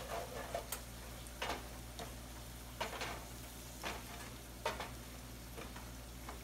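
Wooden spatula stirring mixed vegetables frying in oil in a stainless steel sauté pan, with a steady low sizzle and a scrape against the pan every second or so. The vegetables and masala are being sautéed slowly until the oil separates at the sides, the sign that the spices have cooked in.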